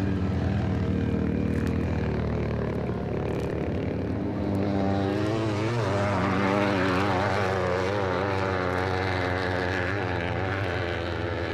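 Propeller airplane engine droning steadily, growing slightly louder with a wavering pitch from about halfway, a recorded sound effect played from a stereo demonstration LP.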